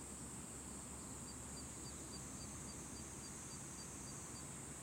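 Steady, faint, high-pitched buzzing of insects in the grass, with a quick run of about a dozen short high chirps, about four a second, from about a second in until near the end.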